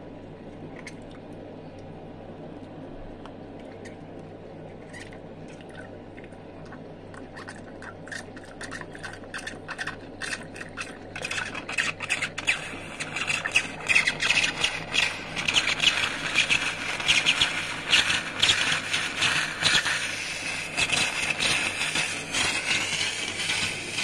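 DeLonghi espresso machine's steam wand sputtering: a faint hum at first, then crackling pops begin about a third of the way in and build into a loud, dense crackling hiss from about halfway.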